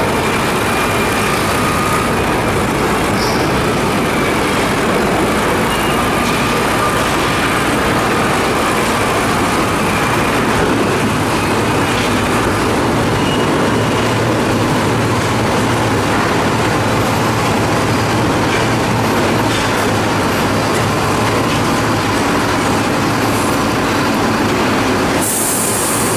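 Heavy HOWO dump truck's diesel engine running as the loaded truck creeps forward and manoeuvres, with faint high squeals now and then. A short air hiss comes near the end.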